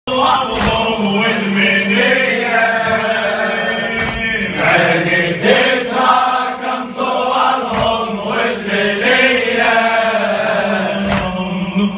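An Iraqi mulla's male voice chanting a drawn-out, melismatic religious-style poem over a steady held drone. A few sharp knocks fall at irregular moments.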